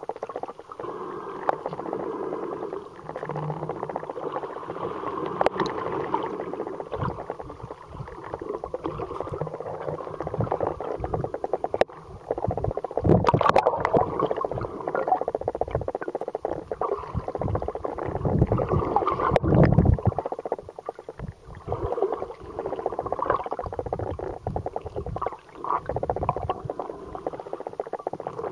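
Muffled underwater water noise picked up through a camera housing: a steady gurgling rush with fine crackle, swelling into heavier low rumbles around a third of the way in and again about two-thirds in.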